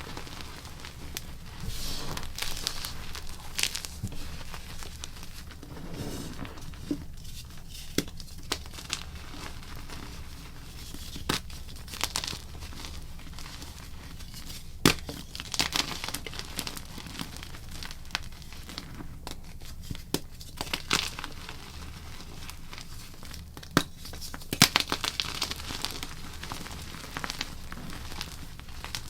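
Blocks of gym chalk being crushed and crumbled: irregular sharp cracks, each followed by a short spell of gritty crunching as the powdery chalk breaks apart, the loudest cracks about halfway through and near the end.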